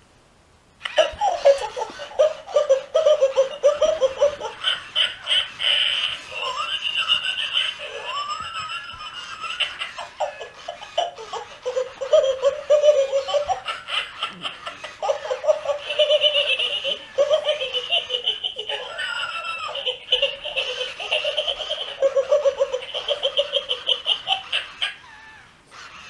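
Plush laughing-dog toy playing its recorded belly laugh: a long run of rapid, rhythmic 'ha-ha' pulses with a few short breaks, starting about a second in and stopping about a second before the end.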